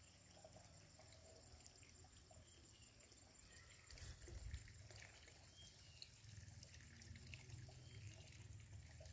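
Near silence: faint outdoor ambience, a low rumble with a thin steady high tone over it, and a slight bump about four seconds in.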